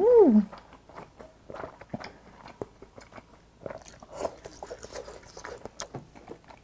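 Close-up mouth sounds of chewing a mouthful of army-stew noodles and ham: soft wet smacks and small clicks of teeth and lips. It opens with a short hummed "mmm" that rises and falls in pitch.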